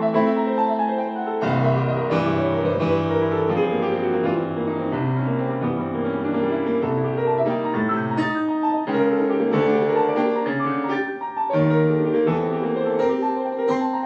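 Yamaha grand piano played solo: fast, dense runs of notes, with a sweeping downward run and heavy bass notes coming in about a second and a half in.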